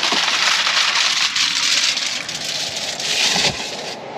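Aluminium foil crinkling and rustling as a crumpled foil cover is pulled off a pan, a dense crackle that eases off near the end, with a low bump about three and a half seconds in.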